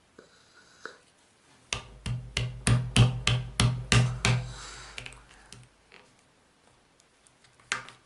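A quick run of about ten knocks on a tabletop, each with a dull thud, about three or four a second, then a single knock near the end. These are hands and puzzle pieces knocking on the table as a children's jigsaw puzzle is put together.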